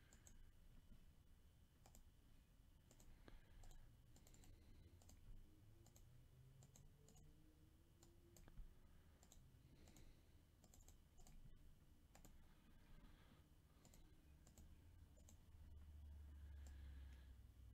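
Faint clicks of a computer mouse, scattered irregularly through near silence.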